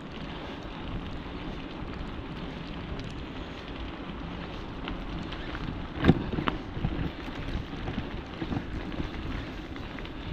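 Riding noise from a moving bicycle: wind buffeting the microphone over the hiss of tyres rolling on a wet road, with a couple of sharp knocks about six seconds in.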